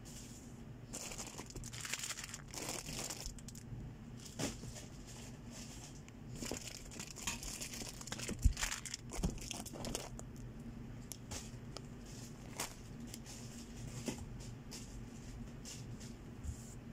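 Plastic packaging crinkling and cardboard rustling as goods are handled and packed into a cardboard shipping box, with scattered knocks; a sharp knock about halfway through is the loudest.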